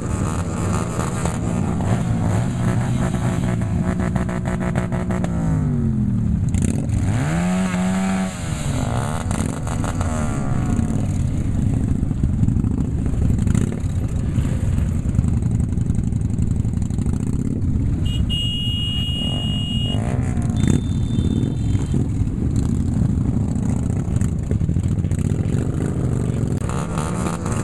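Cruiser motorcycle engines of a group riding in convoy, heard from one of the bikes. The engine note is steady, with a drop in pitch about five seconds in, then a dip and rise a couple of seconds later.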